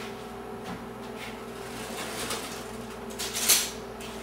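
A kitchen drawer sliding open about three and a half seconds in, after a few faint handling rustles, over a faint steady hum.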